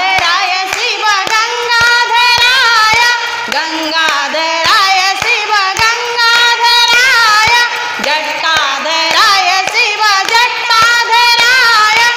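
Group of women singing a Hindu devotional chant together, clapping their hands to keep a steady beat.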